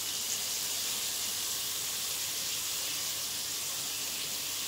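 Steady hiss of food sizzling and steaming in a covered wok, the chili paste, meat and cabbage cooking under a glass lid.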